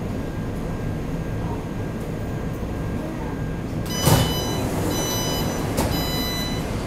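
Taipei Metro C381 train's passenger doors sliding open with a thud, while a door warning tone beeps three times, over the steady hum of the stopped train.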